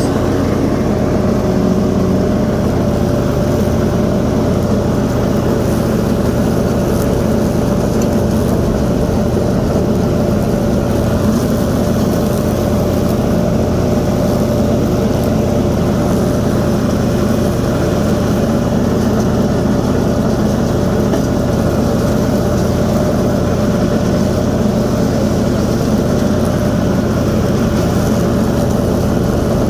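Toro TimeCutter SS4235 zero-turn mower's Kohler 22-horsepower engine running steadily with the cutting blades engaged, mowing tall grass. A thin steady whine sits over the engine.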